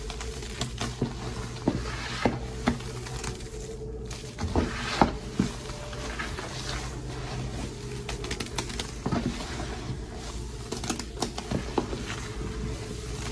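Hands squeezing and kneading a thick, fluffy Gain and Dawn dish soap paste: wet squishing with many irregular small crackles and pops as the foamy paste is pressed and torn.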